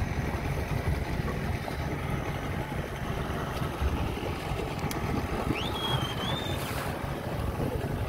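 Small boat under way at sea: a steady low motor and water rumble with wind buffeting the microphone. About two-thirds of the way through there is one short high whistle that rises and then holds for about a second.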